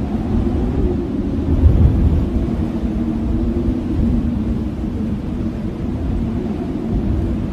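Blizzard wind blowing hard: a steady, deep rush with a wavering low howl, swelling briefly about two seconds in.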